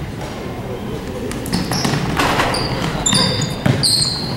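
Basketball being bounced on a gym's hardwood court, with sneakers squeaking on the floor about three seconds in. Both ride over a steady murmur of gym noise.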